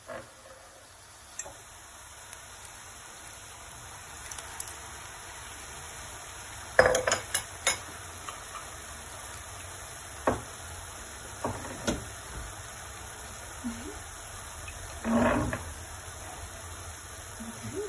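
Ground beef, onion and carrot sizzling steadily in a stainless steel pan. A quick cluster of sharp clinks of a utensil on the pan comes about seven seconds in, with a few single knocks and a short louder sound later.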